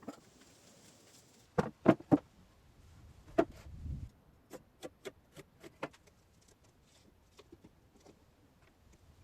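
Handling knocks and clicks: a quick run of three loud knocks about a second and a half in, another knock a little later, then a string of sharper, lighter clicks that fade out.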